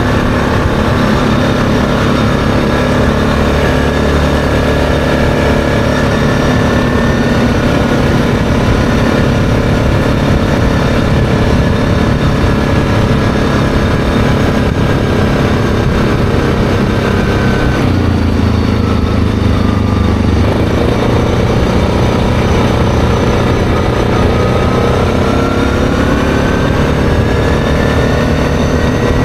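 ATV engine running steadily at road speed. About two-thirds of the way through it eases off and drops in pitch, then picks up again, its pitch rising steadily toward the end.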